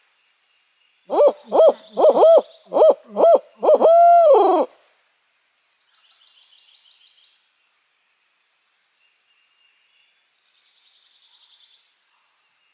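An owl locator call hooted in the barred owl's 'who cooks for you' rhythm: seven loud hoots, the last one drawn out and falling away. It is blown to make gobblers shock-gobble and give away where they are. Twice after it, a faint distant rattling call answers: a turkey gobbler gobbling back.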